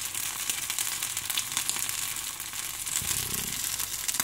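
Aloo tikki (spiced potato patties) shallow-frying in hot oil, a steady sizzle full of fine crackles.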